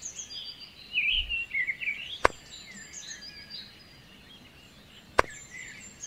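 Birds chirping in short, twittering calls over a quiet background, with two sharp clicks, one about two seconds in and one about five seconds in.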